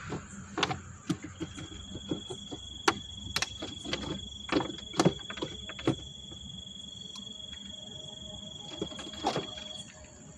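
Irregular clicks and knocks of a clear plastic jar being tipped and shaken over the ground to let a monitor lizard out, over a steady high cricket trill.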